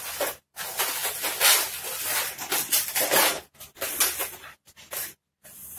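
Latex modelling balloon being twisted and rubbed in the hands: a run of irregular rubbery scrapes and squeaks, broken by a few short gaps.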